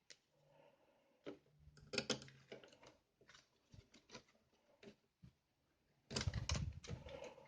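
Laptop being handled: a run of light, irregular clicks and taps of plastic and small parts, then a louder stretch of handling noise about six seconds in.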